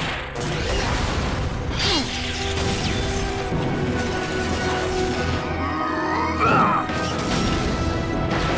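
Cartoon crash and smash sound effects over dramatic background music: lab machinery and panels breaking amid electric crackling, with the loudest crash about six and a half seconds in.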